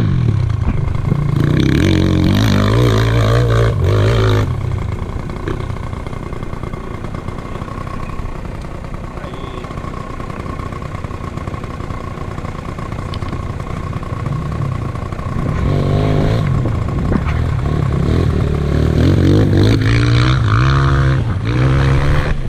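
Enduro dirt bike engine being ridden, revving up and easing off in two bursts with a steadier, quieter stretch of running between them.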